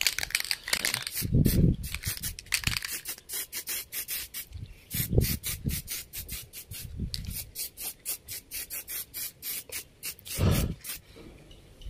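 Aerosol spray-paint can hissing in many short bursts, several a second, as a thin coat goes onto plastic motorcycle fairings, with a few low dull thumps in between.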